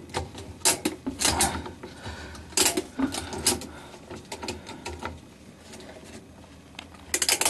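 Ratchet tie-down strap buckles being cranked by hand, the pawl clicking irregularly over the ratchet teeth as the straps are tightened. The clicks are thickest in the first half, then a quieter stretch, then a few more clicks near the end.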